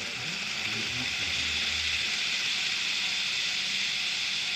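N gauge model of a KiHa 183 series train running along the layout track: a steady rushing whir of the motor and wheels that swells slightly and then holds.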